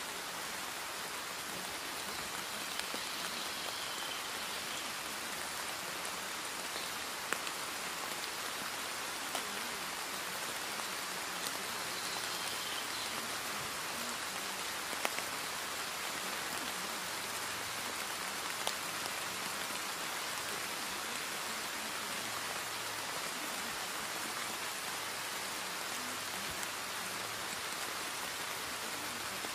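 Steady rain, an even hiss with scattered individual drop ticks.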